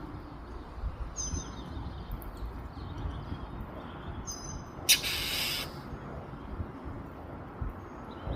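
Backyard birds calling: short high chirps about a second in and again about four seconds in, with a loud, harsh half-second hiss about five seconds in, over a low background rumble.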